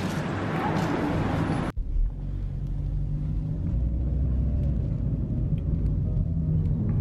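Low, steady rumble of a car driving, heard from inside the cabin. It follows a busier, noisier mix that cuts off abruptly nearly two seconds in.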